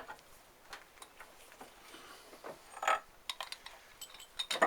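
Small metal parts and tools being handled on a workbench: scattered light clicks and clinks, with a louder cluster of clinks about three seconds in and again near the end.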